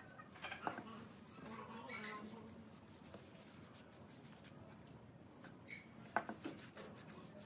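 Paintbrush spreading black paint over a wooden frame: faint scratchy bristle rubbing, with a couple of light knocks near the start and again about six seconds in.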